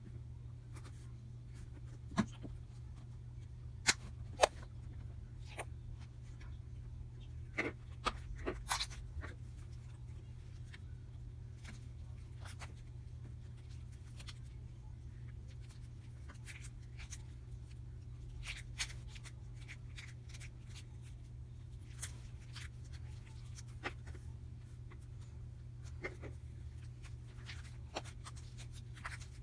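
Hands squishing and stretching slime, with scattered soft clicks and pops over a steady low hum.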